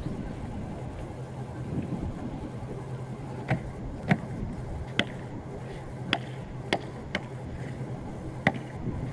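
Building-site sound: a steady low hum with about eight short, sharp knocks at uneven intervals, starting a few seconds in.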